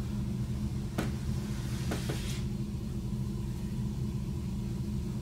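Kamishibai picture card pulled from its wooden theatre frame: a knock about a second in, then a short rustling slide around two seconds in, over a steady low hum.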